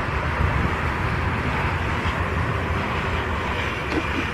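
Twin-engine jet airliner's engines heard from across the airfield as it moves along the runway: a steady rush with a low rumble underneath.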